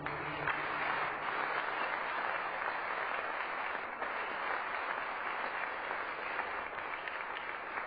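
Audience applauding, steady clapping from many people.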